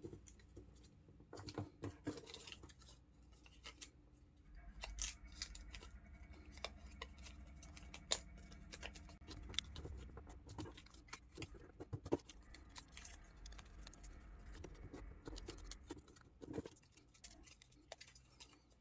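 Faint rustling and crinkling of a sheet of origami paper being folded and its flaps tucked in by hand, with scattered small crisp clicks of the creases.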